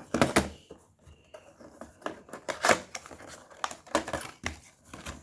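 Plastic packaging and plastic sprues of Games Workshop Barbed Bracken basing accessories being handled: irregular crinkling and sharp plastic clicks, the loudest near the start and about a third of the way in.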